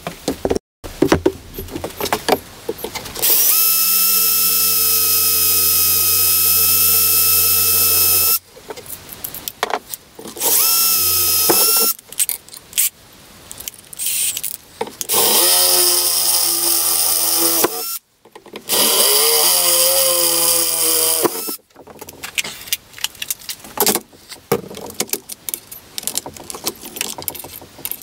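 Cordless drill boring holes through a steel plate. The motor runs in several steady, high-pitched whines of a few seconds each, and in between comes the uneven, rough noise of the bit cutting into the metal. The sound stops and starts abruptly several times.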